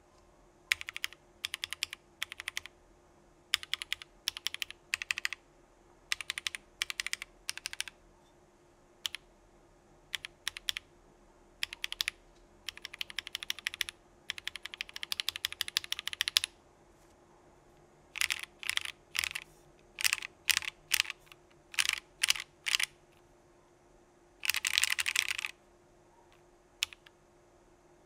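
Typing on a Geonworks Frog mechanical keyboard with lubed Gateron Clear linear switches in an aluminium plate and CRP Desko keycaps. The keystrokes come in short quick runs with brief pauses between them, and a dense fast flurry of keys comes near the end.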